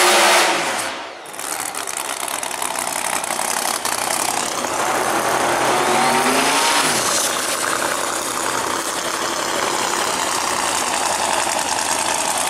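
Drag-racing engines at high revs during burnouts. One engine's note falls away about a second in, another revs up and drops back around the middle, and loud steady engine noise follows.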